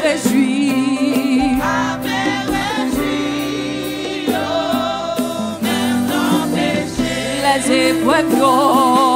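A woman singing a gospel worship song into a microphone over instrumental backing, holding long notes with a wavering vibrato.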